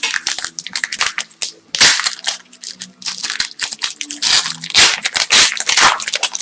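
Plastic trading-card pack wrapper being crinkled and crumpled in the hands, a dense run of loud irregular crackles.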